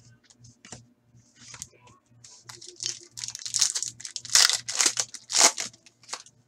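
Foil trading-card pack being torn open and crinkled by hand: a run of crackling tears and crumples that grows louder and busier, loudest from about three to five and a half seconds in.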